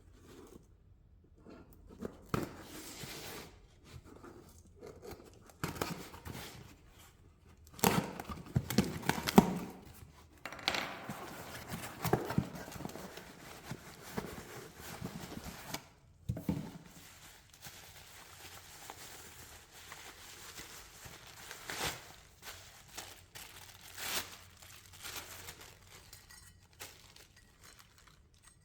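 Packaging being torn and crinkled by hand as parts are unwrapped, with scattered short handling knocks.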